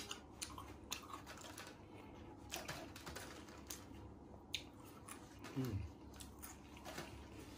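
Many soft, brief clicks of eating by hand: chewing battered fried mushrooms topped with cheese, and fingers picking pieces from a clear plastic takeaway container.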